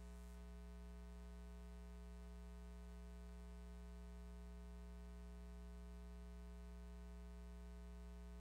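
Near silence: a faint, steady low hum with no other sound.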